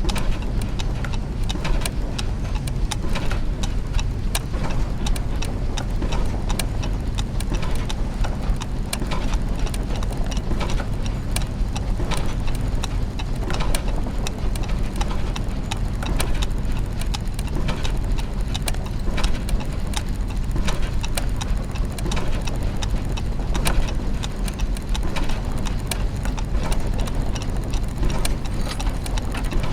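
Clockwork gears and mechanisms running together: many overlapping, irregular ticks and clicks over a steady low mechanical hum.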